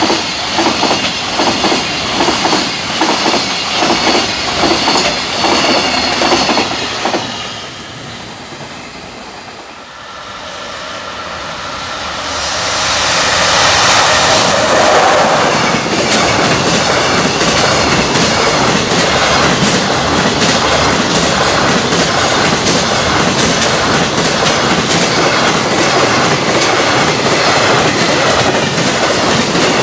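JR container freight trains passing at speed, their wheels clattering in a steady rhythm over the rail joints. The first train's clatter fades about a quarter of the way in. The next one then builds up as it approaches and runs by loudly, with a dense rush of wheels and joint beats through the rest.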